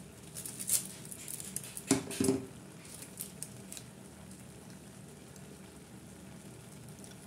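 Vegetable Maggi noodles simmering in a kadai on an induction cooktop: faint crackling and bubbling, with two sharp knocks about two seconds in. After that, a steady low hum and light sizzle.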